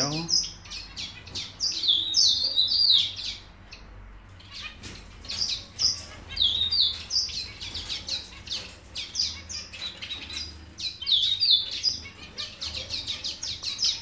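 A mixed aviary flock of small finches, zebra finches and Java sparrows among them, chirping. The short, high calls overlap almost constantly, with a brief lull about four seconds in.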